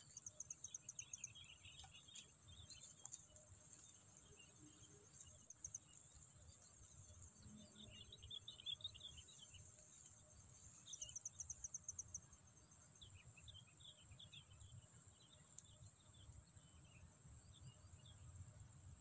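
Insects droning steadily at a high pitch, with birds chirping in short scattered runs. Twice, near the start and about eleven seconds in, comes a brief rapid ticking trill.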